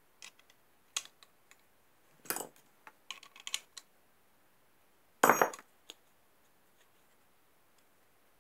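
Handheld metal eyelet-setting pliers being worked open and shut, giving scattered metallic clicks and clinks; the pivot has just been reassembled with its nut left a little stiff. The loudest is a single metal clack with a brief ring about five seconds in.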